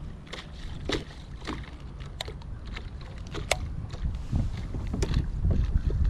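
Small handling noises aboard a fishing kayak: several light knocks and clicks, spaced irregularly, over a low rumble that grows louder in the last two seconds.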